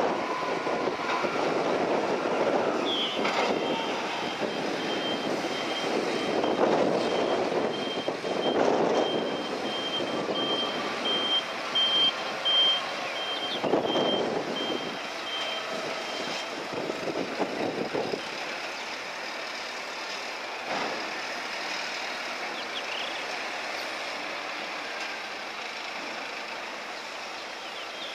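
Heavy machinery working, its engine noise swelling and fading, with a high-pitched warning beeper pulsing steadily from about three seconds in until about sixteen seconds in.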